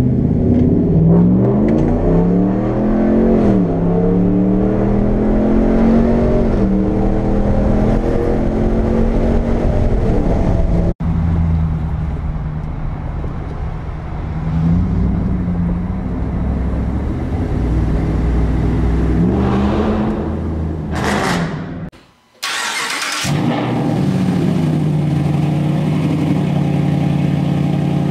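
Ram 1500 pickup's engine revving up and down several times, then running at a steady speed. The sound breaks off suddenly twice, about 11 seconds in and again briefly about 22 seconds in.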